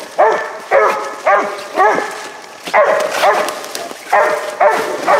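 A young hunting dog barking treed at the base of a tree, a steady run of short rising-and-falling barks about two a second, calling that game is up the tree.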